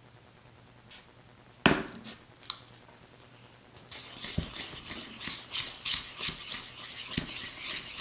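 A single sharp knock about two seconds in. Then, from about four seconds in, a plastic spoon stirs sticky green slime in a ceramic bowl with quick, irregular scraping strokes as activator is mixed into the glue.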